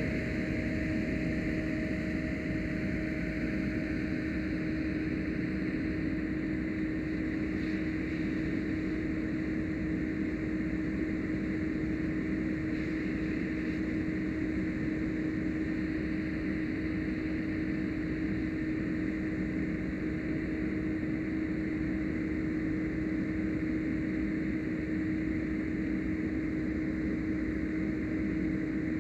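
Fire engine running its pump steadily: a constant engine hum over an even rushing hiss while the hose lines flow.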